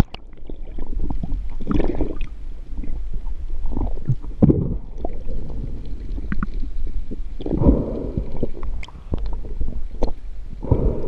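Muffled underwater sound picked up by a camera in its housing: a steady low rumble with gurgling whooshes of water swelling every few seconds as the diver moves through the water.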